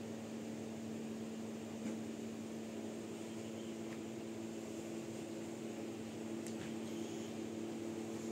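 Steady low mechanical hum with an even hiss, like a fan or appliance running in the room, with a few faint ticks.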